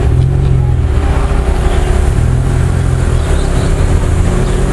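A motor running steadily: a loud, unbroken low rumble with a constant hum above it.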